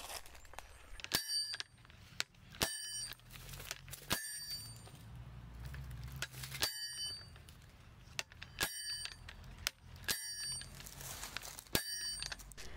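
Dual-mass dynamic cone penetrometer being driven: the steel drop hammer falls onto the anvil seven times, each blow a sharp metallic clank that rings briefly, one every one and a half to two and a half seconds. Each blow drives the cone deeper into the soil, and the blows are counted per 10 cm of penetration.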